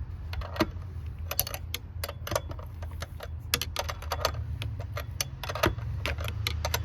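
Hand ratchet clicking in short irregular runs as an 18 mm fitting is turned, over a steady low hum.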